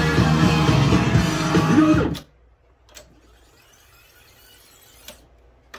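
Music with guitar playing back from a vintage AKAI GX-215D reel-to-reel tape deck cuts off suddenly about two seconds in. The faint stretch that follows holds two short sharp clicks of the deck's transport levers being worked, and the music comes back in at the very end.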